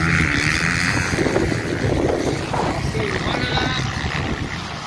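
Motocross bikes' engines revving on the track, mixed with voices of people nearby.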